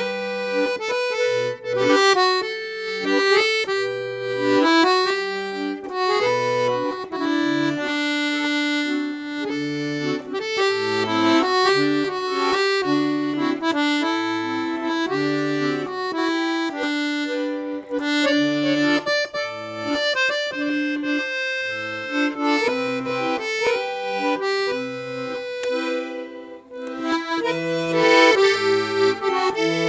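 Black Parrot full-size piano accordion, with 41 treble keys, 120 bass buttons and three sets of treble reeds tuned LMM, playing a tune. The melody runs on the right-hand keys over a steady left-hand bass and chord accompaniment.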